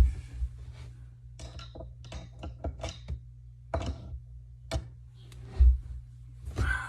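Irregular light clicks and knocks of sink drain parts being handled, with a few sharper knocks about halfway through, over a steady low hum.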